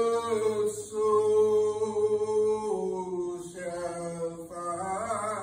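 A man's voice singing slow, long-held notes with a slight waver. The notes shift in pitch about three seconds in and again near the end.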